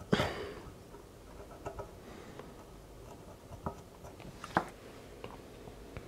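Faint small clicks and scratches of hand work on a circuit board as its back is cleaned with rubbing alcohol, after a brief rustle at the start.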